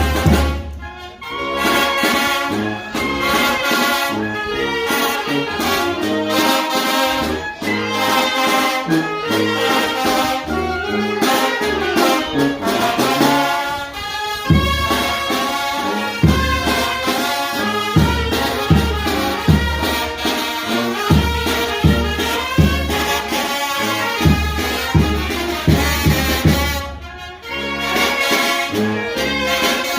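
Mexican banda (brass band) playing live: trumpets and trombones carry the melody over a steady low beat, with brief breaks in the playing about a second in and again near the end.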